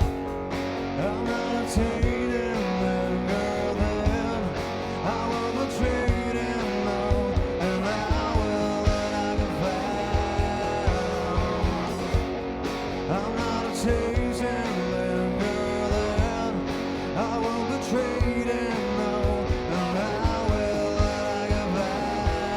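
Live rock band playing: electric guitars over bass and a drum kit, with steady drum hits throughout.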